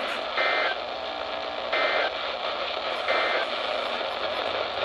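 Three short bursts of Emergency Alert System SAME digital data tones, about 1.3 seconds apart, over a radio receiver's steady static hiss. This is the end-of-message code that closes a NOAA Weather Radio severe thunderstorm warning.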